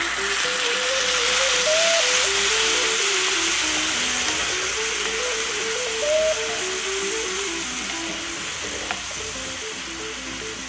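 Beef stock poured into a hot cast-iron skillet of browned ground beef and onions, sizzling loudly as it hits the pan. The sizzle is loudest a second or two in and then eases slowly as the mixture is stirred with a metal spoon.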